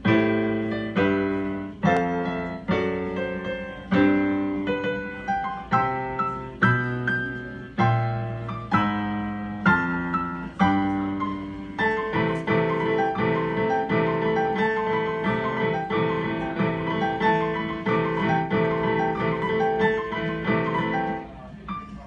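Piano music: chords struck about once a second, then faster, denser playing from about halfway through, which stops shortly before the end.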